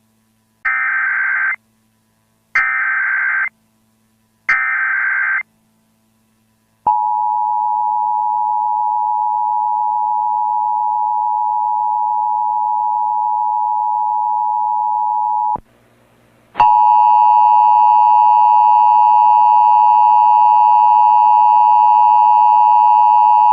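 Emergency Alert System test: three short bursts of warbling digital header data about a second apart, then the steady EAS attention tone for about nine seconds. After a brief gap the attention tone sounds again, louder and buzzier, and runs on.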